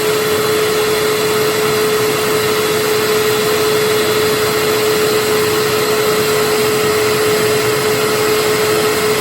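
Hoover WindTunnel upright vacuum cleaner with a Maytag motor running steadily: an even rush of air with one held motor tone over it.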